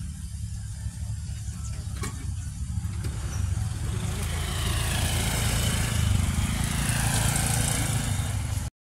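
Motor scooter with two riders passing close by. Its engine sound swells from about three seconds in over a low steady rumble, then cuts off abruptly near the end.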